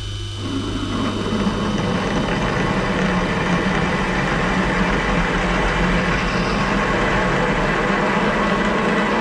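Metal-turning lathe running with a large twist drill cutting into a spinning workpiece: the steady hum of the lathe's gearbox and spindle with the noise of the drill cutting, growing louder over the first second as the drill bites and then holding steady.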